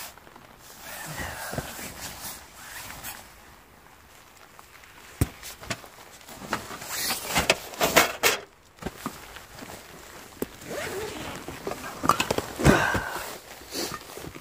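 Camping gear being handled and set down inside a small nylon tent: rustling of fabric, a folded foam sleeping pad and a backpack being placed, with scattered knocks and clicks. The handling is busiest about halfway through and again near the end.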